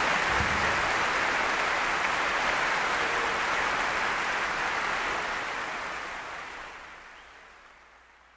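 Audience applause, steady at first and then fading out over the last few seconds.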